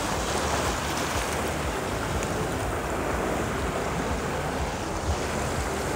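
Ocean surf washing over shoreline rocks and rock pools: a steady rush of wave noise.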